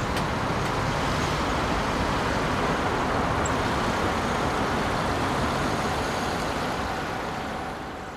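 Steady rumble of road traffic that fades out near the end.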